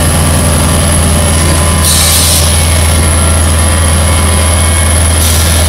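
Roller paper-pulp egg tray moulding machine running with a loud steady drone and low hum, broken by a short burst of compressed-air hiss about two seconds in and another near the end: the air blast that blows the formed trays off the mould.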